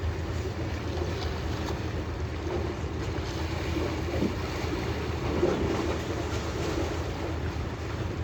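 Steady drone of a boat's engine, with wind buffeting the microphone and the wash of water around the hull.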